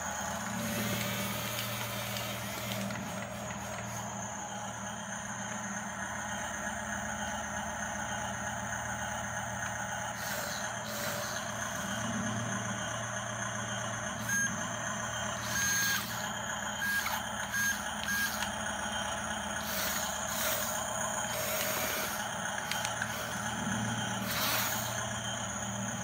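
Toy radio-controlled bulldozer running: a steady low electric-motor hum, with its plastic tracks and blade clattering and scraping now and then. A few short, high electronic beeps come in a cluster around the middle.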